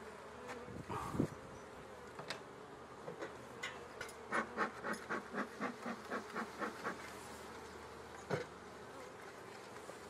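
Honeybees buzzing steadily around an open hive. From about three and a half seconds in, a bee smoker's bellows is pumped in a quick run of puffs, about four a second, for some three seconds. There is a single knock about a second in and another near the end.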